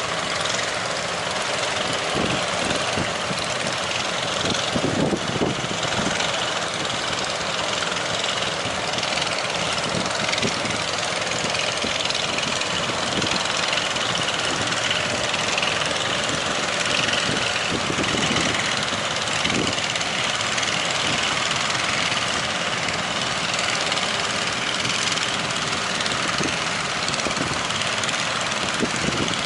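A fishing boat's engine running steadily under a constant rush of strong wind and breaking waves.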